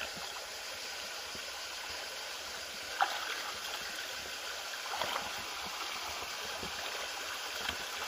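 Shallow, rocky stream rushing and gurgling steadily around the feet of someone wading through it, with two short, slightly louder sounds about three and five seconds in.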